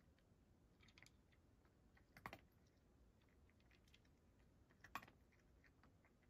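Cat eating from a shallow wooden dish, crunching dry food: faint, irregular little clicks, with two louder clicks about two seconds and five seconds in.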